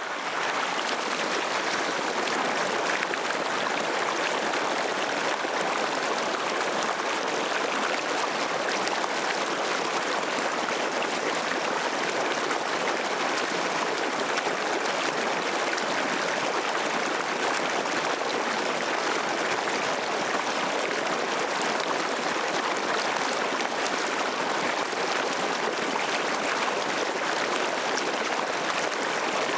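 Waterfall: a steady, even rush of falling and splashing water with no pauses or changes, lighter in deep rumble than in mid and high hiss.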